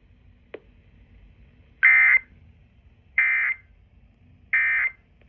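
Emergency Alert System end-of-message data bursts: three short, identical, buzzing digital tone bursts about 1.3 s apart, marking the end of the alert message. A faint click comes about half a second before the first burst.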